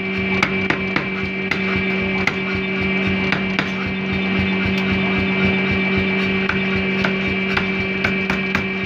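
A 20 kg power hammer forging a red-hot axe blank: the machine runs with a steady hum while the ram strikes the steel on the die. Several sharp blows land irregularly in the first few seconds, then only a few faint hits over the running hum.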